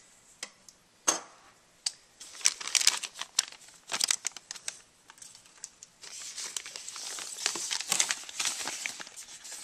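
Plastic parts bags and packing crinkling as hands rummage through them: scattered crackles at first, then steadier crinkling from about six seconds in.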